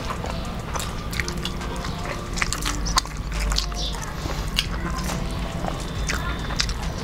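Two people eating rice and curry with their hands: chewing and lip-smacking, with many short sharp clicks, and fingers mixing rice on the plates.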